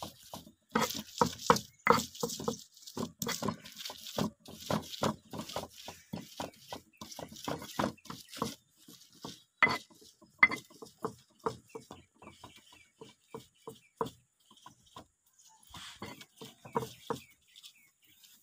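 Stone pestle grinding cooked fish flesh in a stone mortar: a quick series of short knocks and scrapes of stone on stone, about two or three a second, pausing briefly twice near the end.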